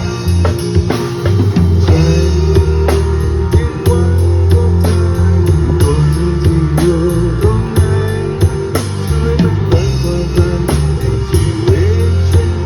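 Live band playing a rock-style song at a sound check: a drum kit keeps a steady beat over a stepping bass line and guitar, with a melody line that slides between notes.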